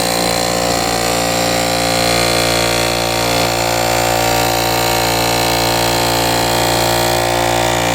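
A small air compressor running steadily at an even pitch, pumping the makeshift bottle fuel feed up to about 3 bar of pressure; it cuts off suddenly at the very end.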